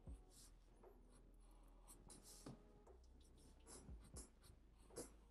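Black felt-tip marker drawing short strokes on paper: faint, irregular scratchy squeaks one after another, with a slightly louder stroke near the end.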